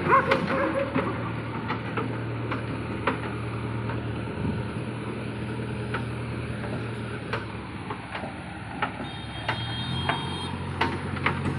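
JCB backhoe loader's diesel engine running steadily as the machine drives over a rough dirt track, with scattered knocks and rattles. The engine sound drops away for a couple of seconds past the middle, then comes back near the end.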